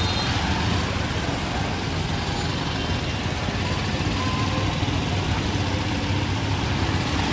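Street traffic: vehicle engines running and idling with a steady low hum under a continuous hiss.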